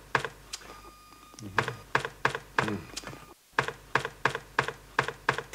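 A single computer keyboard key pressed over and over with one finger, making sharp clicks about three a second. The sound cuts out for an instant about three and a half seconds in.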